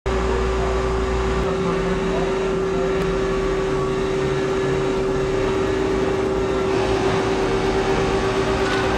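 Canon Colorado large-format roll printer running while it prints, a steady machine hum with one held tone.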